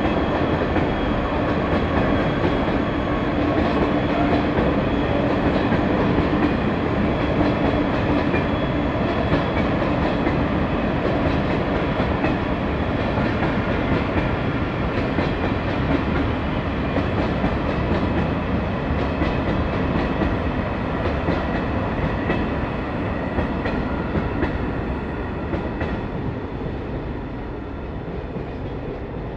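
A string of Eaos open freight wagons rolling past: a steady rumble of steel wheels on rail with clicks over the rail joints. A faint steady hum runs through the first nine seconds, and the sound eases off slightly near the end.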